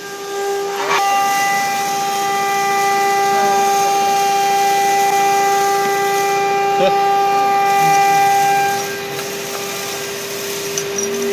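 Acctek AKS2030 CNC engraving machine's motor drive whining steadily at one high pitch. A stronger tone rich in overtones joins about a second in and drops away near the end.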